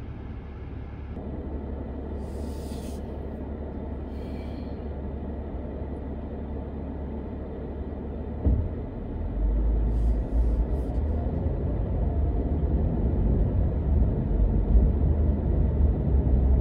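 Car interior noise: the air-conditioning fan blowing at full over a steady low engine rumble, growing into a louder, deeper road rumble from about eight and a half seconds in as the car drives.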